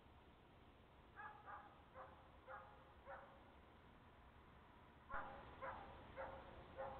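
A dog barking faintly in the distance: a run of about five short barks, a pause, then four more, roughly two barks a second.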